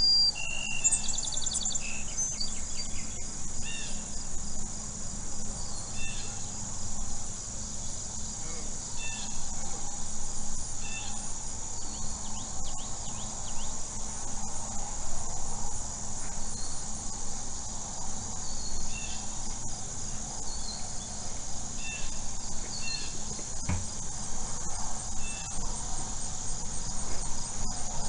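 Forest ambience: a steady high-pitched insect chorus, with short bird chirps scattered through it and a quick trill about a second in.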